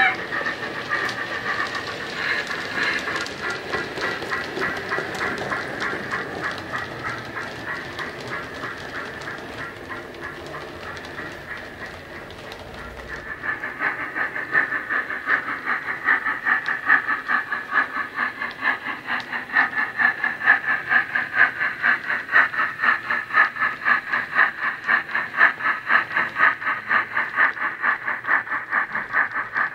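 Wheeltappers DCC sound decoder playing the steam exhaust of a Bachmann 3F model locomotive through a bass-enhanced speaker: rhythmic chuffs that fade away, then about a third of the way in grow louder again and run on regularly at roughly two and a half a second.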